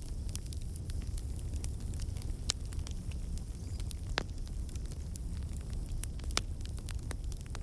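Fireplace wood fire burning: a low steady rumble with frequent scattered crackles and pops, a few of them sharper and louder.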